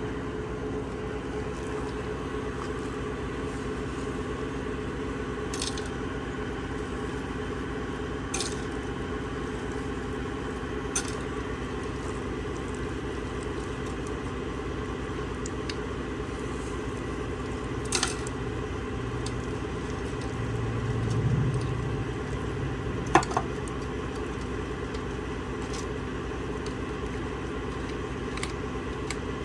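A motor or engine running steadily with an even drone. A few sharp clicks and knocks sound over it, the loudest a knock about 23 seconds in, just after a brief low swell.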